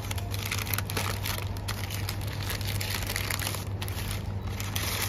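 Paper burger wrapper crinkling and rustling as it is handled and unwrapped, over a steady low hum.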